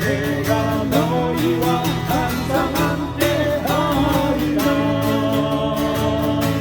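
Live performance of a Korean gospel song: acoustic guitar strummed in a steady rhythm under a melody line.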